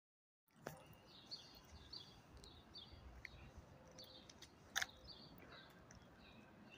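Faint street ambience: small birds chirping over and over in short high calls, over a low steady rumble, with a sharp click about five seconds in.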